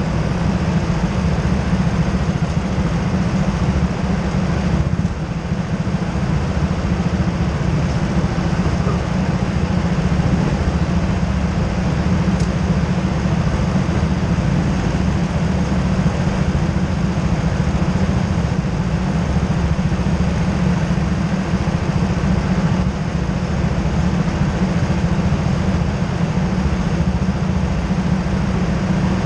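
Go-kart engines running steadily at idle, a low, even drone with the camera's own kart closest.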